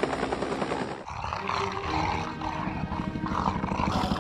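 Helicopter rotor sound effect chopping steadily, which gives way about a second in to lion growls and roars.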